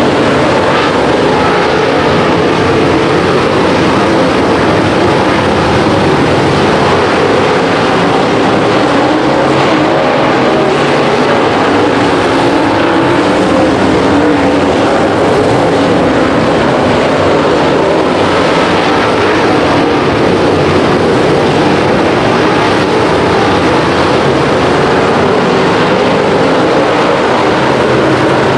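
Racing engines running loudly and without a break at race speed, their pitch wavering a little as the throttle comes and goes.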